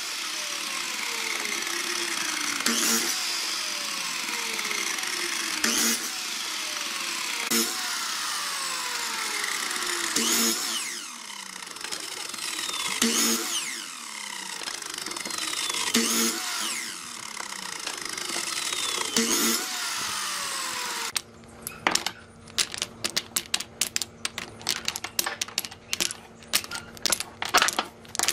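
Sliding miter saw running and crosscutting short wooden blocks off a board, a cut every two to three seconds, each marked by a knock and a whine that falls in pitch. About 21 seconds in the saw stops, and small cut wooden blocks clatter as they are dropped one after another into a woven basket.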